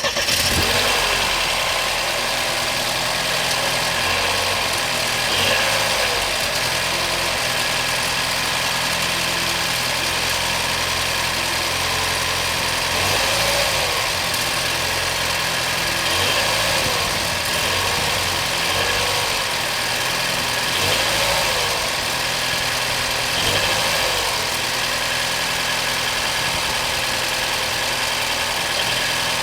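BMW 116i F20's 1.6-litre turbo four-cylinder engine idling steadily just after start-up, with a short rise and fall in pitch recurring every few seconds. The owner takes this engine noise for a fault; BMW calls it normal.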